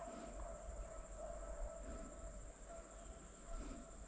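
Faint outdoor ambience: a steady high-pitched insect drone, with a fainter steady tone lower down.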